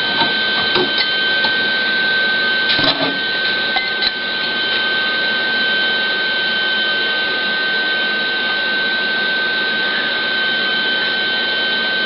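Steady hum and hiss of running shop machinery with a constant high whine, and a few light clinks of metal being handled in the first few seconds.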